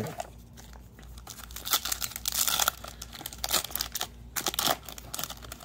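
Foil Yu-Gi-Oh! booster pack crinkling and tearing as it is handled and opened, a dense run of crackles from about a second and a half in, thinning out toward the end.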